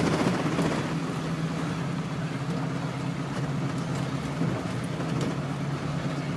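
Steady engine and tyre noise of a car driving along a highway, heard from inside the cabin.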